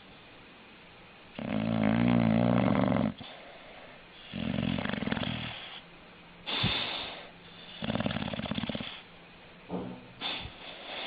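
Dog snoring: a rhythmic series of five or six snores, about one every one and a half to two seconds. The first, about a second and a half in, is the loudest and longest.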